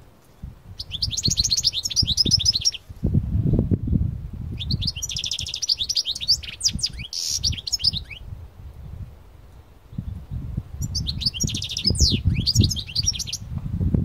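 A caged male European goldfinch of the parva race singing: three bursts of fast twittering song, starting about a second in, about four and a half seconds in and near eleven seconds, with a low rumble underneath.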